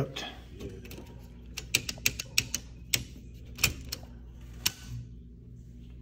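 Sharp clicks of a tripped circuit breaker in a home breaker panel being worked off and back on to reset it. There is a quick run of clicks about two seconds in, then two single clicks about a second apart.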